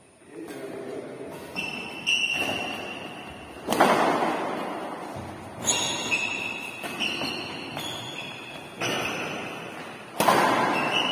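Badminton rackets striking a shuttlecock in a rally, a sharp smack about every one to two seconds, each with a brief high ringing ping. Every hit echoes long in the large, bare hall.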